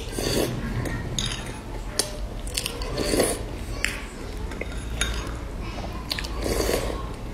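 Close-up eating sounds: a metal spoon clinking against a ceramic bowl and three slurped sips of a dark liquid from the spoon, about three seconds apart.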